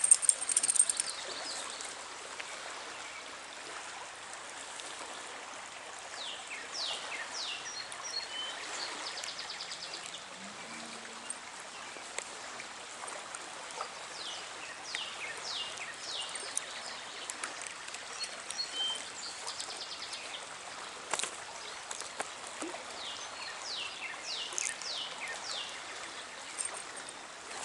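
Trout stream water running steadily. Short high chirps, from birds, come at intervals over it.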